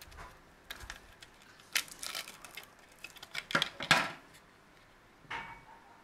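Stiff clear plastic blister packaging crackling and clicking as a USB flash drive is worked out of it by hand, with a louder clatter about two-thirds of the way through.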